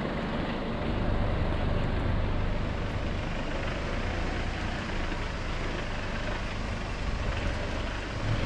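Nissan Navara's engine running steadily at low revs as the ute moves slowly along a dirt track, heard from a microphone held outside the cab window, with a low drone under a haze of tyre and outside noise.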